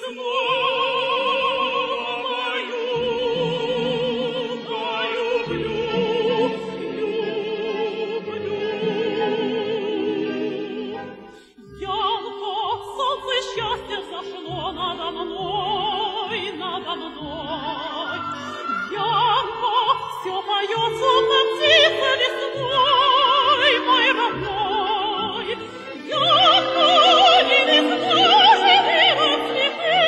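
Operetta duet with orchestra: a woman's soprano singing with wide vibrato over orchestral accompaniment. The music breaks off briefly about twelve seconds in, then resumes and grows louder toward the end.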